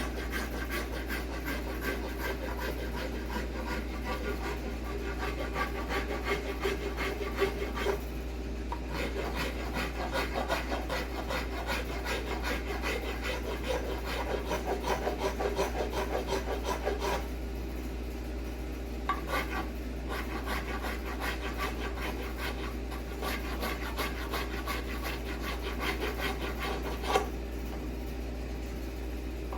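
Rapid rasping strokes of a hand tool on wood, with short pauses a few times.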